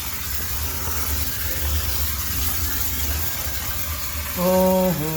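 High-pressure steam sterilizer running with a steady low hum and an even hiss. Near the end a louder pitched tone starts and steps down in pitch.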